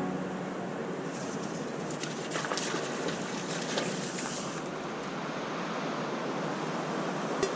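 Steady rushing of water, such as surf on the shore, with a few faint ticks in the middle.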